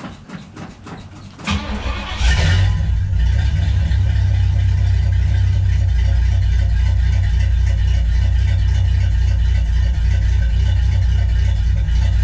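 1964 Pontiac GTO's 389 V8 on a cold start. It cranks on the starter in quick even pulses, catches about a second and a half in, flares up, and settles into a loud, steady idle with a deep rumble.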